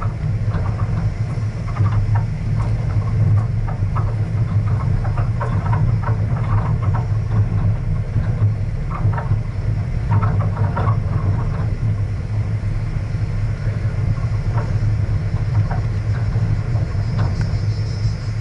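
A vehicle driving over a rough gravel dirt road: a steady low engine and road rumble, with scattered clicks and rattles from stones under the tyres and the shaking bodywork.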